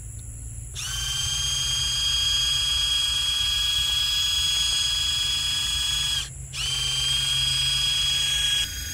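Small electric pump of a handheld sprayer whining steadily while it sprays a thin stream of liquid. It starts about a second in, cuts out for a moment after about six seconds, then runs again until just before the end.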